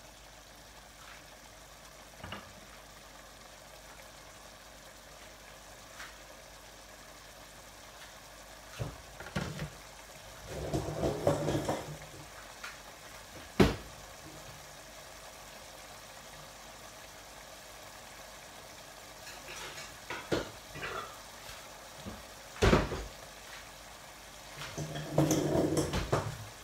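Spiced onion masala simmering in water in a steel pot, a low steady bubbling hiss as it cooks down before the meat goes in. A few sharp knocks and clatters break in, the loudest about halfway through and again some nine seconds later, with two short louder rumbling stretches.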